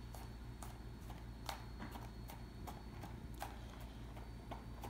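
Kitchen knife tapping on a plastic cutting board while chopping garlic: light, irregular chops, about two to three a second.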